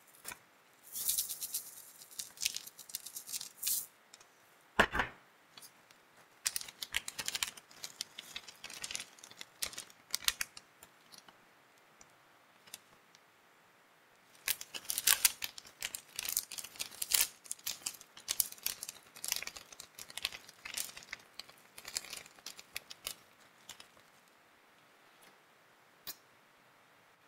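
Plastic snack wrappers crinkling and rustling in bursts, with small chocolate biscuits clicking onto the steel ice-cream pan. There is a single heavier knock about five seconds in.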